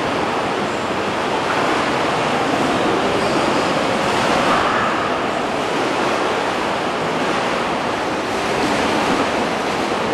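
Water surging in a rock cave: a steady, loud rushing noise that swells a little about halfway through.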